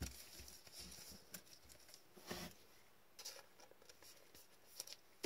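Near silence, with a few faint scattered taps and rustles of trading cards and their plastic holders being handled.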